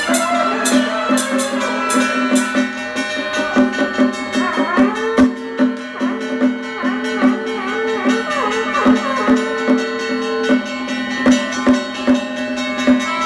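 Traditional temple ritual band music: a wavering pitched melody over a steady drone, with continual drum and gong or cymbal strikes.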